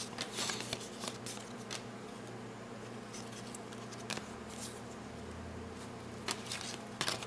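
Basketball trading cards being flipped through by hand: a scatter of soft flicks and ticks as card stock slides and snaps against card stock, thickest at the start and again near the end, over a steady low hum.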